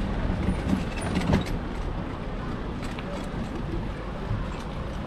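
Steady street noise of traffic, with a few brief clicks about a second in.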